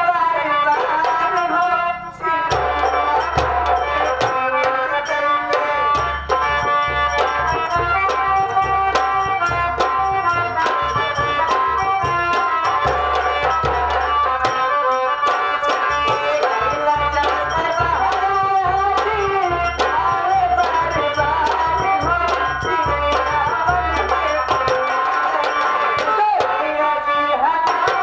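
Live nautanki folk-theatre music: a melody over a steady beat from a large nagara kettle drum and a small hand drum, with fast high ticks running on top. The deep drum strokes start about two and a half seconds in and drop away a few seconds before the end.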